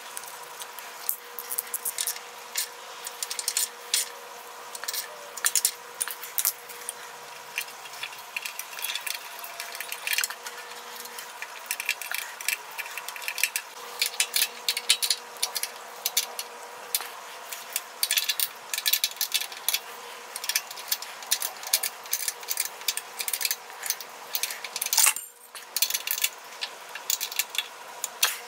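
Hand tools working on a small engine: irregular metallic clicks, taps and clinks as a wrench and socket are fitted to bolts and knock against metal parts, with a faint steady hum underneath.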